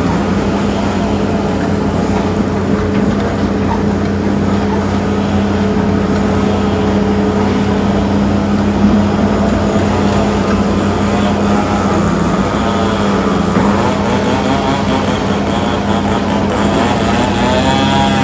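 Heavy earthmoving machine's diesel engine running steadily, with a wavering higher whine coming in about two-thirds of the way through and again near the end.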